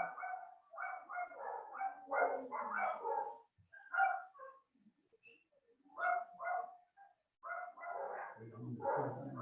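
A dog barking in quick runs of short barks, with pauses between the runs. A lower, steady pitched sound joins near the end.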